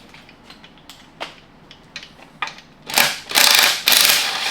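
Half-inch-drive ratchet with a 13 mm socket working a bolt on a transmission case. A few scattered clicks come first, then about three seconds in a loud run of rapid ratcheting lasts about a second and a half.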